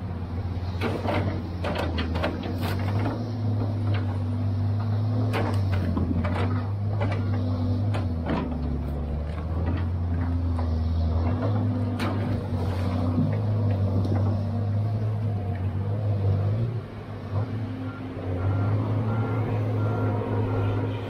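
John Deere tracked log loader's diesel engine running under hydraulic load while its grapple picks up and swings logs, the engine note dropping lower for a few seconds in the middle. Sharp knocks of logs and grapple clunking together, many in the first few seconds and a loud one about twelve seconds in.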